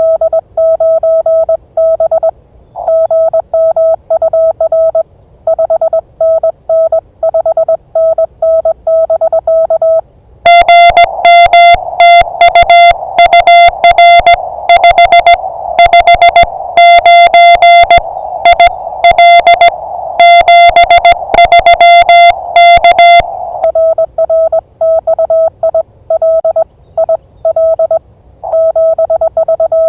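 Morse code (CW) from an amateur radio transceiver: one steady tone, keyed on and off in dots and dashes. A louder stretch in the middle carries radio hiss and sharper clicks on each keyed element.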